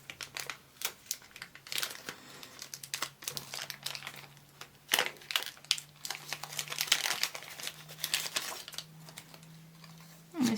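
Crinkling and tearing of a mystery pin's blind bag being opened by hand, irregular crackles over a faint low hum.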